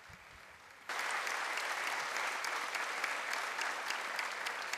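Crowd applauding, starting suddenly about a second in and slowly fading away.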